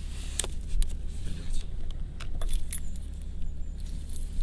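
Car keys with a remote key fob jingling and clicking in the hand, several short sharp clicks over a steady low rumble.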